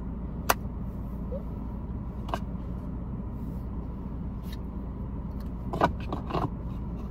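Steady low hum inside a stationary car, with a few sharp clicks: about half a second in, about two and a half seconds in, and near six seconds.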